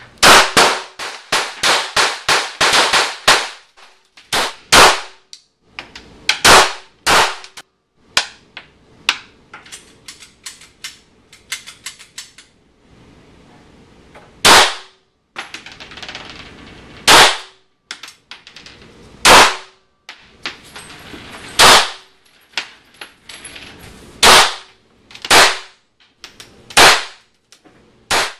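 Semi-automatic pistol shots in an indoor range: a fast string of about ten shots in the first few seconds, then shots in pairs and singles, and later single shots every two to three seconds. Fainter shots come in between, mostly in the middle.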